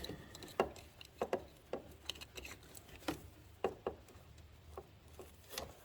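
Scattered light clicks and taps of plastic wiring connectors being handled and pushed together while fitting an LED headlight bulb.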